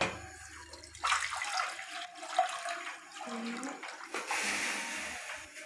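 Water poured from a plastic jug into a nonstick cooking pot, splashing into the water already in the pot. It starts about a second in, comes unevenly, then runs as a steadier, louder pour from about four seconds in until just before the end.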